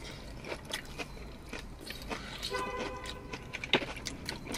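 Close-up eating sounds: biting and chewing crisp fried chicken wings, a scatter of short sharp crunches and wet mouth clicks.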